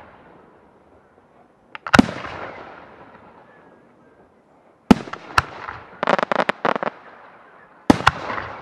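Aerial firework shells bursting overhead: a loud bang about two seconds in, two more close together around five seconds, a quick run of crackling reports just after six seconds, and another double bang near the end. Each bang trails off in a long echo.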